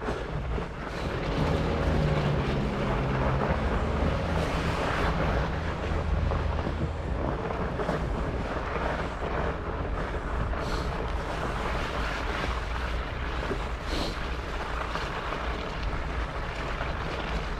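Wind buffeting the microphone of a camera riding along on a fat bike in snow: a steady rough rushing noise with a low rumble. There is a faint low hum in the first few seconds and two light clicks near the end.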